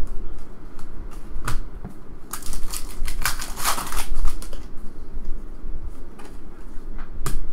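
A foil trading-card pack being torn open and crinkled for about two seconds, near the middle. A few single clicks of cards being handled come before and after.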